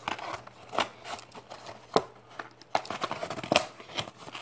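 Webcam packaging being handled: a printed cardboard insert and cables rustling, with several sharp clicks at irregular intervals.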